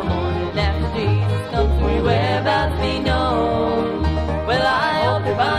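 Bluegrass band music from a vinyl record: banjo and acoustic guitar over a steady upright bass pulse, with a sliding lead line that rises near the end.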